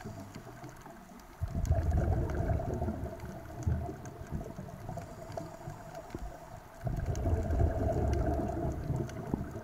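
Scuba diver exhaling through a regulator underwater: bubbles rumble out in two long bursts, the second about five seconds after the first. A faint steady hum runs underneath.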